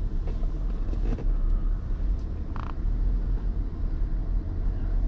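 Low, steady rumble of a car running, heard from inside the cabin, with a few brief creaks and clicks.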